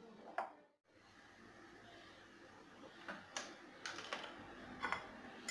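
Quiet room tone with a few short, faint clicks and taps, most of them in the second half.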